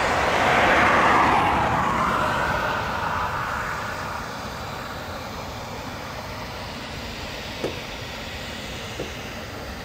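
Eurofighter Typhoon's twin EJ200 turbofan engines running at taxi power as the jet moves along the taxiway, swelling to a loud whoosh about a second in, then easing to a steadier, quieter jet noise. Two short clicks come near the end.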